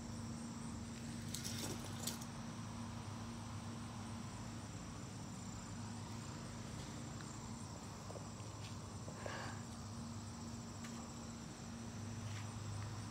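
Faint insects trilling steadily at a high pitch over a low steady hum, with a few brief clicks and rustles, the clearest about a second and a half in and near nine seconds.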